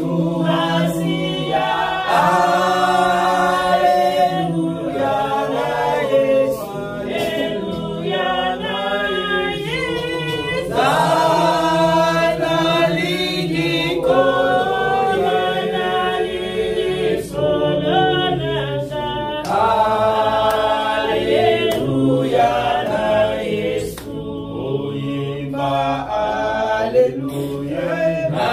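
Church congregation singing a worship song together, voices holding long notes.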